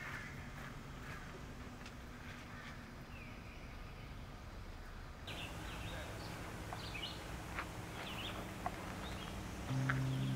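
Birds chirping now and then over quiet outdoor background noise, the short high calls coming more often in the second half. A low steady tone comes in near the end.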